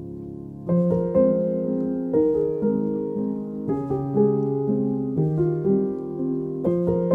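Background piano music. A soft held chord gives way about a second in to a louder phrase of piano notes, which starts again about every three seconds.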